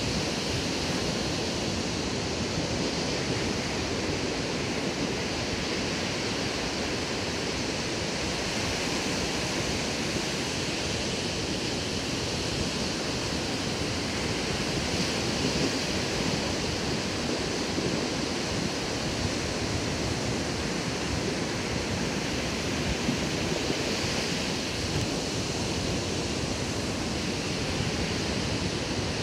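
Ocean surf breaking and washing up a sandy beach: a steady rush of noise that swells a little now and then.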